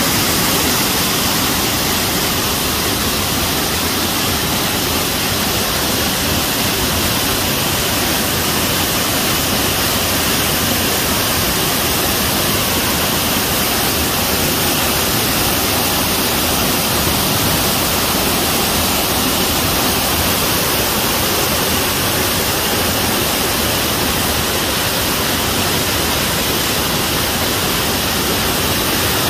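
Mountain waterfall pouring over rock ledges: a loud, steady rush of falling water.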